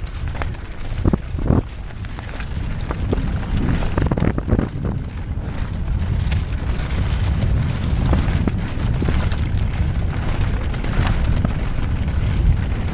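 Wind buffeting the microphone as a mountain bike runs fast downhill, a heavy rumble that grows a little louder. Sharp knocks and rattles from the bike come through it, most clearly about a second in and again around four seconds.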